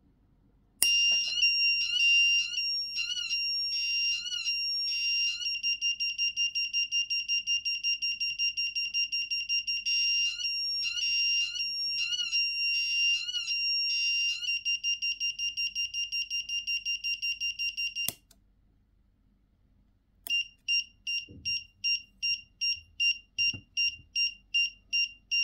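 Small electronic buzzer driven by a homemade transistor effect circuit, sounding a high-pitched alarm-like tone as it cycles through its sound modes. It clicks on about a second in, pulses and warbles in groups, holds a steadier fluttering tone and stops with a click. After a short silence it beeps rapidly, about three or four beeps a second.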